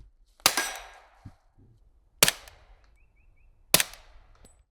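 Suppressed FN FNX-45 Tactical pistol firing three subsonic .45 ACP rounds, spaced about a second and a half apart. Each shot is a sharp crack with a short ringing tail.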